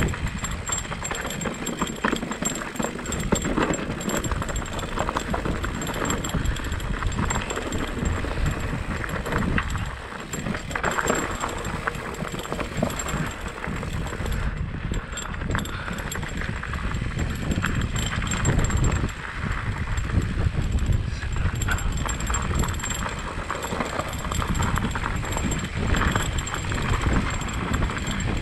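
Mountain bike clattering and rattling over a rough, rocky trail, with many small knocks over a constant rushing rumble.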